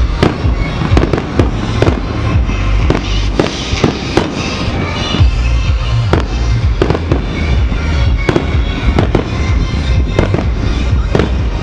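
Aerial fireworks bursting in quick succession: a continuous string of sharp bangs and crackles, several a second.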